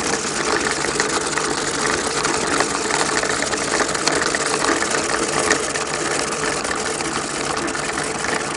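Billiard-ball cleaning machine running steadily: a constant motor hum under a dense whirring noise.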